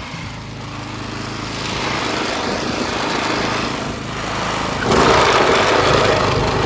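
Craftsman snowblower's small gas engine running steadily, growing louder; about five seconds in the sound jumps suddenly to a louder, harsher rush.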